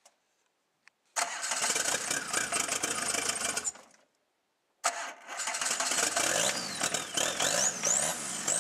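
Peugeot 306 engine being cold-started. A first attempt of about two and a half seconds fades out. A second attempt about a second later catches and keeps running, with the revs rising and falling near the end.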